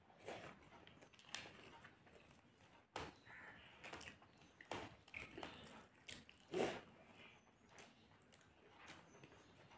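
Faint sounds of two people eating rice and vegetables with their fingers: scattered chewing and mouth noises, with short clicks and taps here and there, the loudest about six and a half seconds in.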